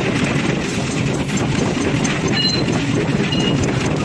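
Steady, dense industrial machinery noise of a steel-forging shop, with a couple of brief high metallic squeals.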